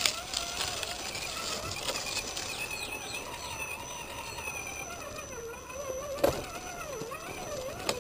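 Electric motor of an Axial Jeep Wrangler RC crawler whining as it drives over rough dirt, its pitch rising and falling with the throttle, with a sharp knock about six seconds in.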